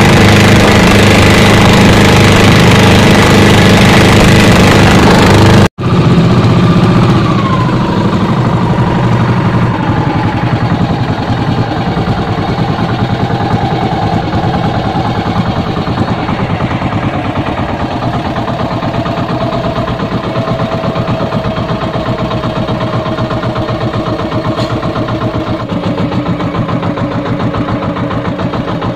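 The small inboard engine of an outrigger fishing boat runs loudly at speed, with wind and spray noise over it. It breaks off for an instant about six seconds in. Afterwards it runs quieter and its pitch slowly falls as the engine slows.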